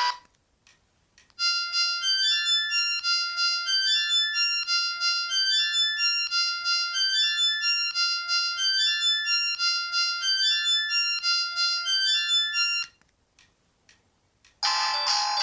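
Ringtones on a 2004 O2 X2 mobile phone: one cuts off at the start, then after a short pause a synthesized polyphonic melody with a repeating lower note plays for about eleven seconds and stops suddenly. After another short pause the next ringtone begins near the end.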